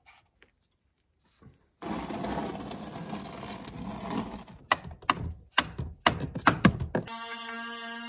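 A plastic oil drain pan scraping across a concrete floor as it is pushed into place, followed by several sharp knocks. About seven seconds in, a steady pitched hum with many overtones starts.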